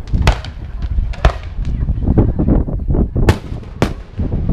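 Aerial firework shells bursting: four loud sharp bangs and several smaller cracks, over a continuous low rumble.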